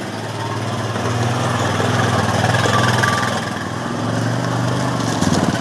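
Honda Rancher 420 ATV's single-cylinder four-stroke engine running as the quad moves slowly out of the shed, the engine note swelling about two seconds in and easing off again toward the end.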